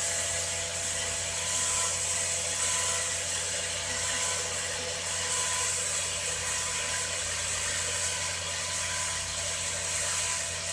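Electric power tool running steadily, a high hiss over a constant motor hum, with no change in speed.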